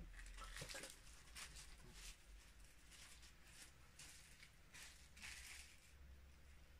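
Near silence: room tone with a low steady hum and faint, scattered soft rustles.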